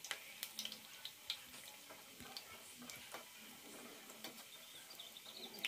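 Sweet wheat-flour fritters deep-frying in hot oil in a steel pan: a steady, quiet sizzle with scattered small pops and crackles.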